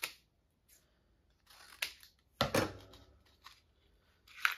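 Handling noises as a small packet is opened from a charm advent calendar: about five short, crisp snaps and rustles of paper or plastic packaging, the loudest near the end.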